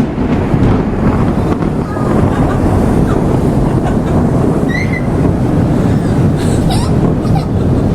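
Long roll of thunder: a loud, deep rumble that swells just before and holds steady, with no sharp crack.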